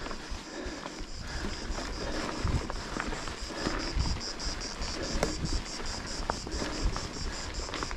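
Mountain bike ridden over rough ground: low rumble and wind buffeting on the microphone, with scattered knocks and rattles from the bike. A fast, even, high-pitched pulsing, about five beats a second, runs underneath.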